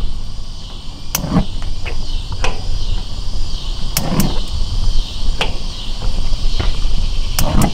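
The three burners of a Weber Genesis II E-310 propane gas grill are lit one after another. Knob and igniter clicks come about three times, each followed by a short soft thump as a burner catches. Crickets chirp steadily underneath.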